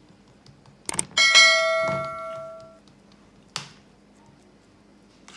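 Subscribe-button sound effect: a couple of quick mouse clicks, then a bell ding that rings out and fades over about a second and a half. A short knock follows later.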